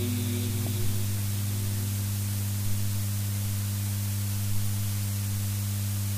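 Steady low electrical hum over a hiss from the microphone's sound system, with a few faint small knocks.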